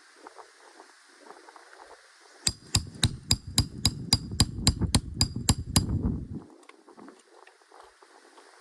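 Roofing hammer striking a steel nail puller in a quick, even series of ringing metal-on-metal taps, about four a second for over three seconds, driving the puller under a shingle nail to pull it from an asphalt 3-tab roof.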